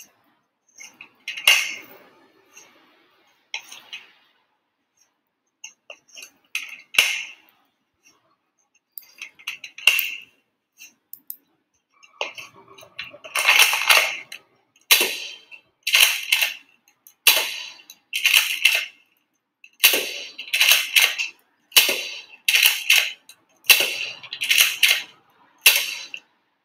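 Plastic clacks and snaps of a Nerf Mega Cycloneshock blaster being reloaded and shot. Scattered clicks come first, then from about halfway a regular run of sharp double clacks about once a second, each a prime and a shot.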